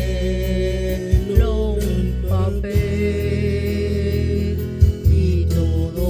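A song playing: a singing voice holding long notes that slide between pitches, over a steady bass accompaniment.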